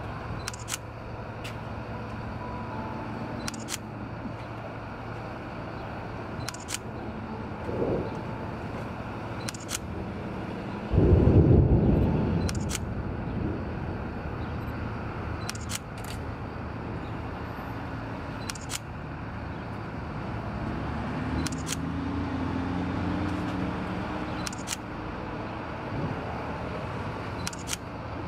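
Large mobile crane's diesel engine running steadily under load as it lifts a railroad caboose, its note rising a little about 20 seconds in. A camera shutter clicks every second or few for time-lapse stills. About 11 seconds in comes a sudden loud low rumble of thunder, the loudest sound, fading over a couple of seconds.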